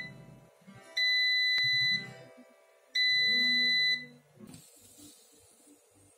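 Air fryer beeping at the end of its cooking cycle: two long, steady, high-pitched beeps, each about a second long and about two seconds apart.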